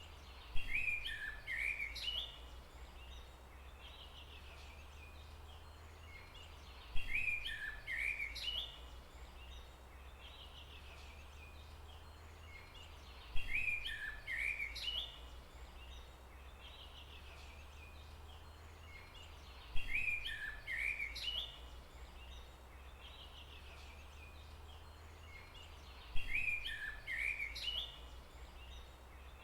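A bird singing the same short phrase of quick chirps five times, about every six and a half seconds, over a steady low hum.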